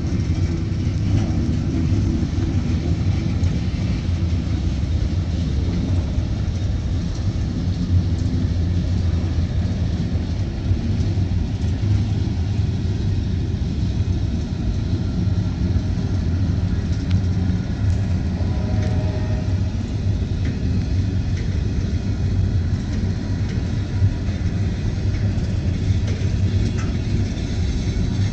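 Freight train cars (tank cars and covered hoppers) rolling past close by: a steady low rumble of steel wheels on the rails.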